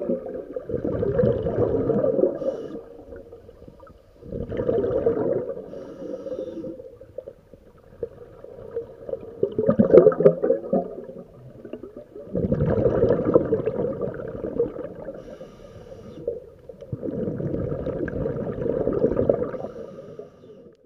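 Scuba diver's exhaled breath bubbling out of the regulator underwater, in bursts of two to three seconds about every four seconds, with quieter gaps between for the in-breaths.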